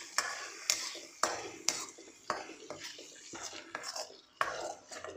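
Steel spoon scraping and knocking against a steel kadai, about two knocks a second, while stirring ground raw masala paste frying in oil, with a faint sizzle underneath.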